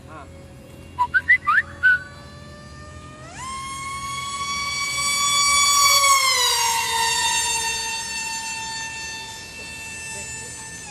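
Remote-control jet plane's motor whining at a steady high pitch. About three seconds in the whine jumps up in pitch, then grows louder to a peak a little past the middle, and the pitch slides down as the sound fades. A few short rising chirps sound about a second in.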